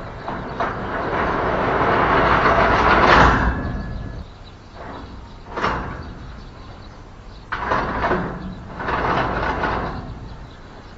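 Steel cantilever sliding gate frame pushed along its steel channel track on rollers, a noisy rolling scrape. One long run builds to its loudest about three seconds in, a sharp knock follows near six seconds, then two shorter runs.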